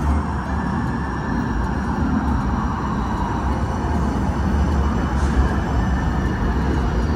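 Light-rail trolley cars passing close by the platform, a steady rumble of wheels on the rails with a faint, steady high whine above it.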